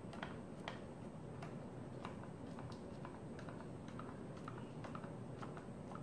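Light, irregular clicks and taps, about two or three a second, as a spare capsule is pressed down into each hole of a plastic capsule-filling machine to pack moringa powder into the capsules.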